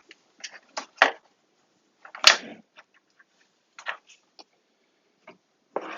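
A series of short, sharp clicks and knocks from handling the newly assembled Arduino controller box, the loudest about two seconds in.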